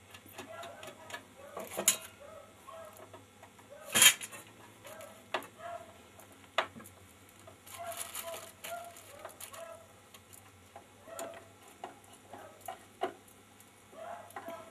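Screwdriver and small screws clicking and clinking against the back cover of a Victor 16 mm sound-film projector as the cover screws are fitted, in scattered irregular clicks with a sharper knock about four seconds in.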